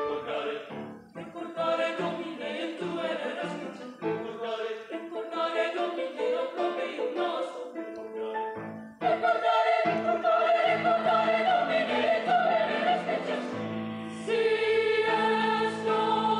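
Mixed youth choir singing in parts: short phrases broken by brief pauses, then louder held chords about nine seconds in, swelling again near the end.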